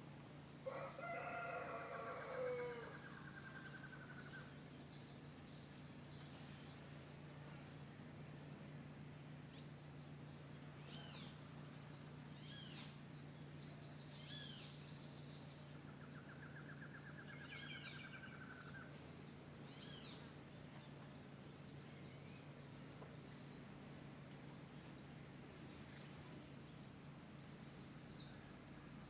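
A rooster crows once about a second in, with a fainter crow later on, while small birds chirp in short high notes throughout over a steady low hum.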